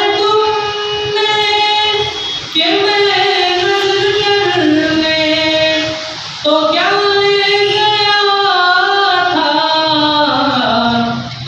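A solo male voice singing a naat unaccompanied, in long held notes with ornamented glides. It comes as three phrases, with short breaks about two and a half and six seconds in.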